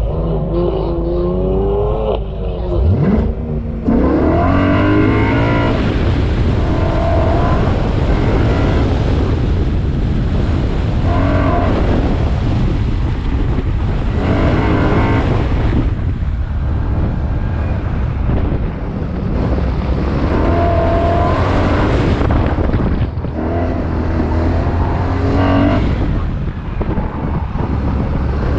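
BMW S65 V8 pulling away hard about three seconds in, then revving up and easing off again and again as the car is driven through an autocross course.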